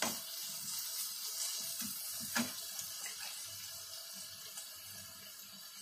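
Sliced onions sautéing in hot oil in a non-stick kadai, a steady sizzling hiss that grows fainter near the end. A wooden spatula knocks against the pan at the start and once more about two and a half seconds in.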